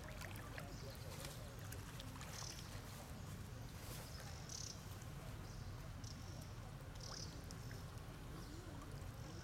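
Faint water splashing and paddling from macaques swimming in a pond, over a steady low rumble. A short high chirp repeats every two seconds or so.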